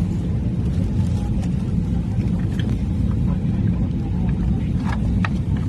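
Airliner cabin noise: the steady low rumble of the engines and airflow heard from a passenger seat, with a couple of faint clicks near the end.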